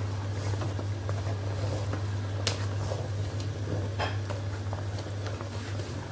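Thick ogbono soup bubbling at a rolling boil in a metal pot as a wooden spoon stirs it, with a couple of sharp knocks about midway. A steady low hum runs underneath.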